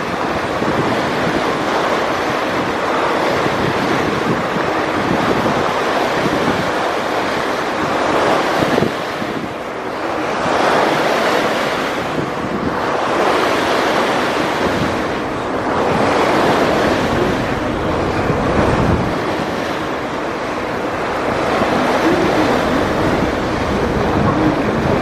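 Wind buffeting the microphone on a moving ferry, a loud, steady rush that swells and eases every few seconds, with river water washing along the hull.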